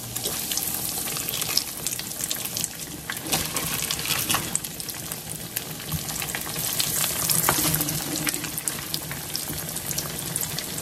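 Salmon croquette patties frying in hot vegetable oil: a steady sizzle full of crackling pops as the patties are laid into the oil.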